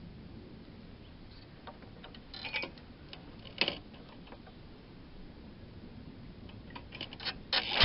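Scattered sharp clicks and knocks over a faint steady background: a couple about two and a half and three and a half seconds in, then coming thicker near the end.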